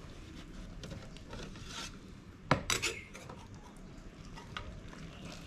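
Metal ladle scraping and clinking against a metal jug while scooping hot water into it, with one sharp clank about two and a half seconds in followed by a few lighter knocks.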